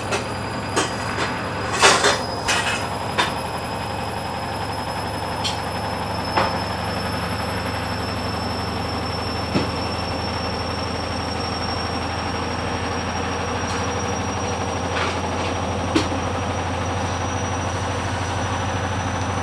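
Hoover Dynamic washing machine spinning with a steady motor hum and high whine, broken by sharp knocks and bangs: several in the first few seconds, then a few more spread through the rest. The drum is badly unbalanced.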